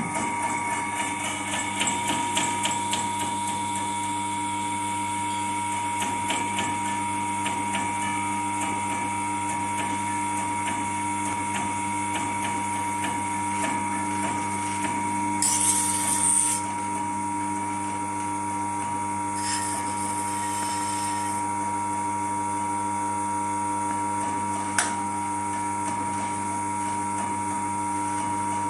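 Electric potter's wheel spinning with a steady motor whine, while bowls are thrown on it. There are light clicks in the first few seconds, a brief hissing burst about halfway through and a single sharp click near the end.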